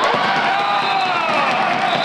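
Players and spectators cheering and shouting in a sports hall over a handball goal, many voices at once, with one long shout slowly falling in pitch.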